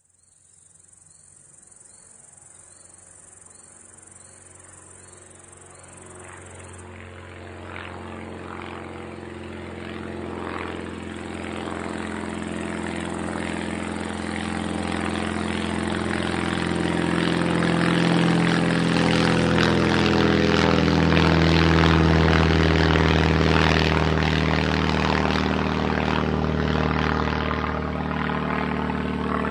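Small propeller plane approaching, its engine drone growing steadily louder and peaking about three-quarters of the way through before it begins to ease off. Crickets trill steadily throughout, and birds chirp in a repeating pattern during the first few seconds while the plane is still faint.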